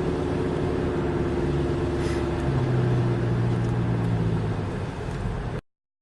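Car engine and road noise heard from inside a moving car, a steady hum whose note changes about halfway through. The sound cuts out abruptly shortly before the end.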